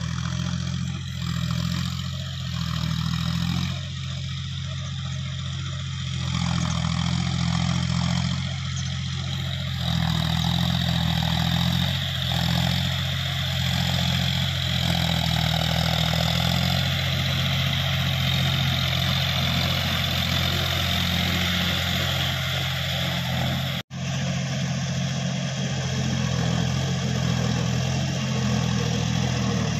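John Deere 5050D tractor's three-cylinder diesel engine running steadily while pulling a rotavator through a flooded paddy field. The sound cuts out for an instant about four-fifths of the way through.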